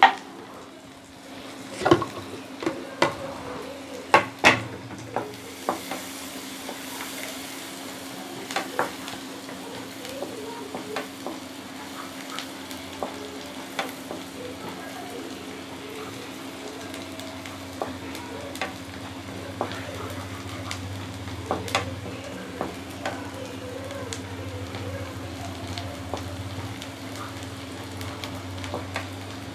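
Chopped onions and green chillies sizzling in oil in a nonstick kadai, being sautéed until they brown, while a wooden spatula stirs them with frequent sharp clicks and scrapes against the pan. A steady low hum runs underneath.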